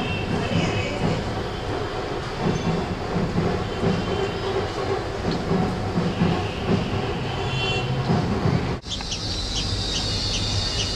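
A steady rumbling noise that cuts off abruptly near the end. After it a bulbul chick chirps in quick, repeated high peeps over a low hum.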